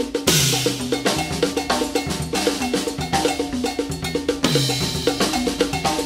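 Drum-kit playing built around a mounted cowbell struck with wooden sticks in a fast, even rhythm. Two heavier accents, one just after the start and one about four and a half seconds in, add a cymbal crash and a low drum hit.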